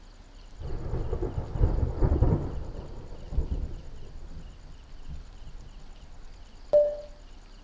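A low rumble swells in about half a second in and dies away over the next few seconds. Near the end comes one short, sharp sound with a brief tone.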